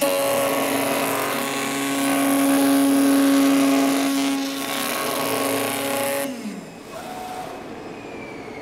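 CNC oscillating knife gasket cutting machine running with a steady motor hum and hiss, starting abruptly. About six seconds in it winds down with a falling pitch, leaving a quieter hum.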